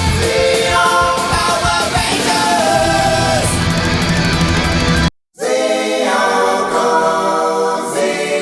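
Rock music with sung vocals. It cuts out for a moment about five seconds in, then resumes with the bass dropped out.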